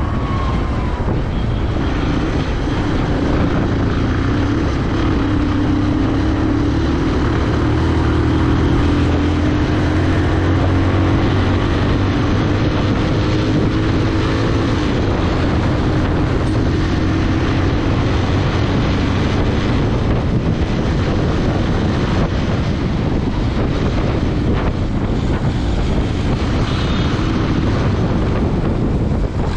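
Motorcycle engine running steadily while riding, with wind rushing over the microphone. The engine note drifts slightly in pitch.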